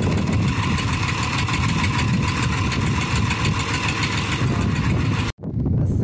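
Farm tractor's diesel engine running steadily, freshly bump-started by pushing, until it cuts off abruptly near the end.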